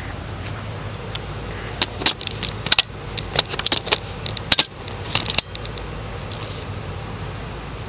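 Irregular light metallic jingling and clicking for about three and a half seconds, like keys or metal gear jangling, over the steady low hum of idling vehicles.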